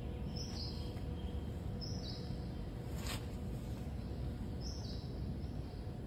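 Steady low background rumble, with three short high chirps spread through it and a single sharp click about three seconds in.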